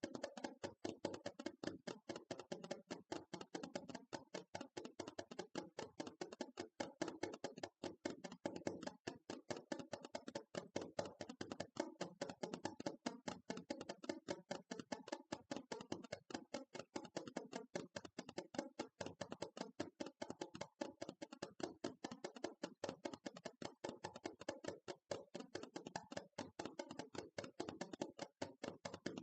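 ASMR tapping: quick, continuous taps on a surface, several a second, with no pause.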